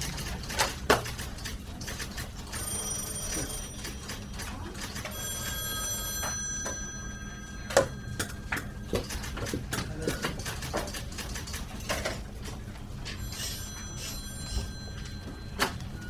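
A bell-like ringing that comes in three bursts, the middle one the longest, among scattered sharp clicks and knocks.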